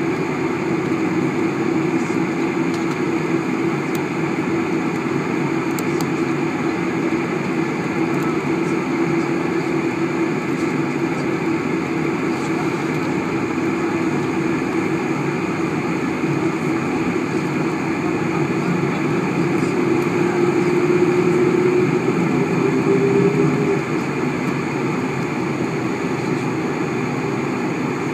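Inside the cabin of a Boeing 747 after landing: the engines' steady hum and rumble as the jet slows on the runway and turns off to taxi, with a steady whine through it. About twenty seconds in, the whine rises a little in pitch and gets louder for a few seconds, then drops back suddenly.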